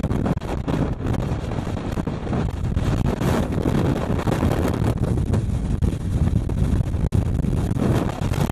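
Blizzard wind buffeting the microphone in strong, continuous gusts: a loud, low rumble of wind noise.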